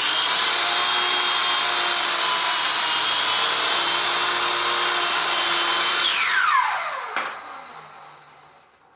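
Electric miter saw running at full speed while squaring up the end of a stack of stiles. About six seconds in it is released and spins down with a falling whine, with a sharp click about seven seconds in.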